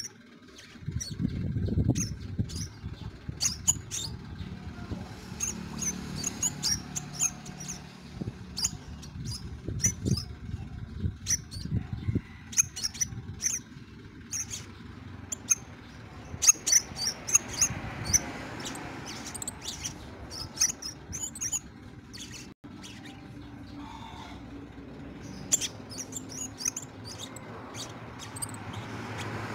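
Caged scarlet minivet (sepah raja) calling: runs of short, sharp, high chirps in quick clusters, pausing briefly now and then, over a low rumble.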